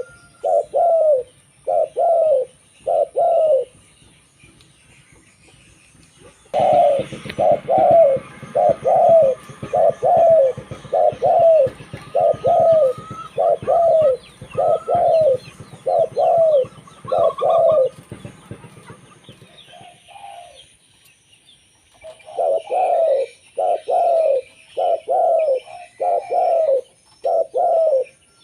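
Zebra dove (local perkutut) cooing: quick series of short, rolling coo notes, each dipping in pitch, in three runs separated by pauses of a few seconds. A low background noise sits under the middle run.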